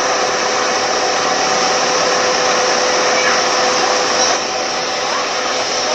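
Car air-conditioning blower fan running steadily, a loud even whoosh of air with a constant hum tone through it. It eases off slightly about four seconds in.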